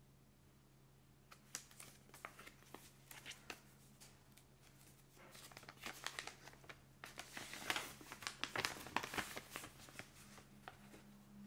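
Sheet of printed paper rustling and crinkling as a folded leaflet is unfolded by hand. It starts about a second in with scattered crackles and becomes a denser, louder rustle in the second half.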